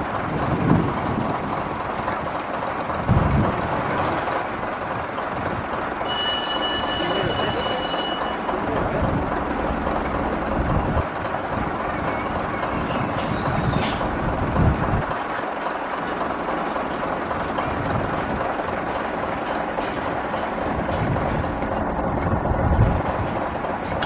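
Steam train, a steady rushing noise with a short high whistle about six seconds in and a few low thumps.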